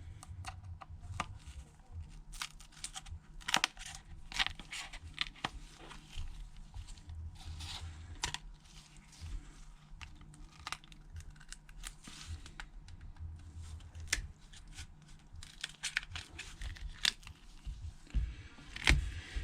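A thin pry tool (jimmy) scraping and clicking around the edge of an iPhone 7 Plus screen as it is worked along the frame to lift the display, with irregular small crackles and snaps as the screen's adhesive gives way.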